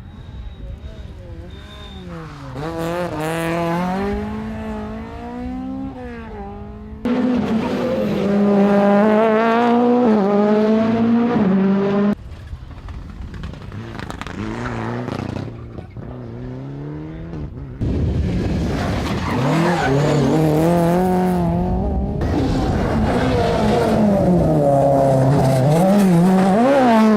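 Rally cars at racing speed, engines revving hard, their pitch climbing and dropping again and again through gear changes and lifts, in a run of separate passes cut together with abrupt changes about every few seconds.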